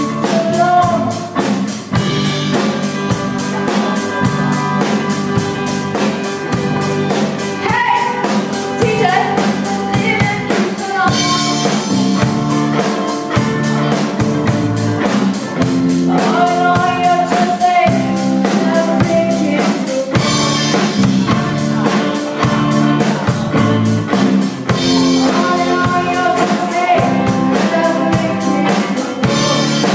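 A small student rock band playing a song, with drum kit, electric guitars and a sung vocal line over a steady beat.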